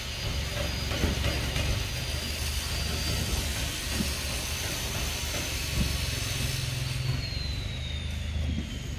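Steady outdoor background noise: an even high hiss over a low rumble. Near the end a faint high whine slowly falls in pitch.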